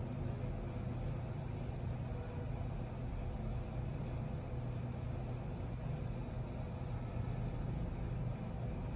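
Steady low-pitched hum with a faint hiss, even throughout: constant background machinery or room noise.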